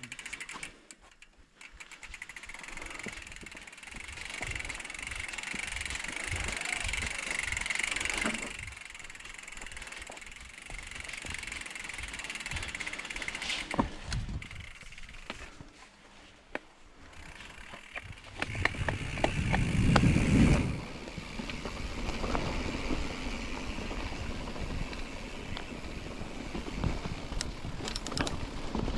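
Mountain bike being ridden over a rough dirt single track: tyre noise and the bike rattling over bumps, with wind rumble on the microphone. About two-thirds of the way through there is a louder low rumble lasting a second or two.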